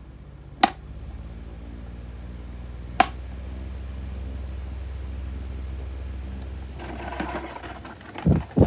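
2019 Schallen 12-inch desk fan's motor running with a steady hum on its worn-out bearings, with two sharp clicks about two seconds apart. Near the end, a loud rush of wind noise hits the microphone.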